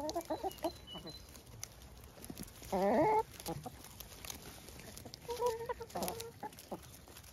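A flock of hens clucking as they feed on a pile of fresh weeds: short, contented calls, the loudest about three seconds in and another run of calls around five to six seconds.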